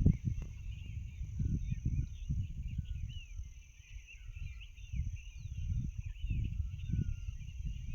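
Many small birds chirping, a dense chorus of short, high chirps, over an uneven low rumble and a steady high-pitched tone.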